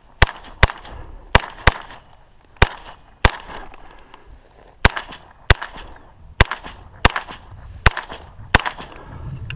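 Semi-automatic rifle firing twelve shots in six quick pairs, each pair about half a second apart, the gunshots close and loud with a short echo after each.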